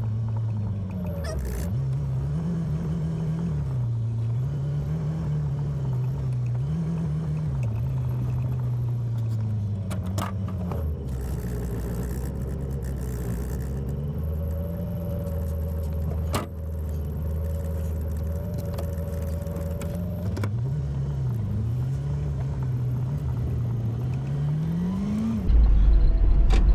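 1972 Datsun 1600's four-cylinder engine running as the car is driven, its revs rising and falling again and again, with one steady climb near the end. It switches abruptly to a louder low rumble just before the end.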